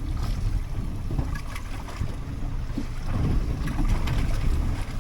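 Wind buffeting the microphone over water sloshing against a small fishing boat in rough seas, with a few light knocks.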